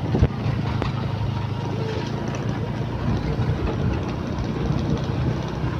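Fishing boat's engine idling steadily, with a few light knocks.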